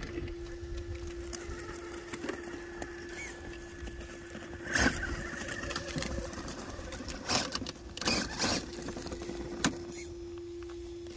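Brushless motor of an RC rock crawler (Hobbywing Xerun AXE) humming and whining as the truck creeps up a rocky trail. Several sharp knocks and scrapes of the tyres and chassis on rock come about five seconds in and again between seven and ten seconds, the loudest sounds heard.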